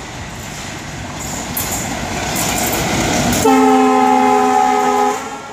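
WDM-3A ALCO diesel-electric locomotive running light, its engine and wheel noise growing louder as it approaches. About three and a half seconds in, as it passes, it sounds its horn in one steady blast of under two seconds that cuts off sharply.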